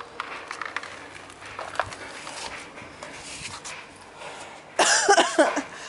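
Plastic plant pot being tipped onto its side on a tiled floor, with quiet scraping and loose soil rustling. About five seconds in, a loud, brief, wavering high-pitched cry.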